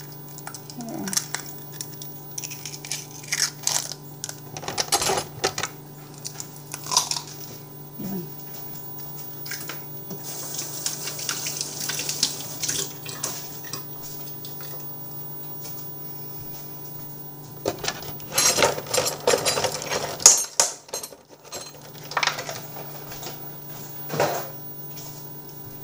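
Clinks and clatter of glass bowls, dishes and utensils being handled during baking preparation, coming in scattered knocks with a busy flurry about three quarters of the way through.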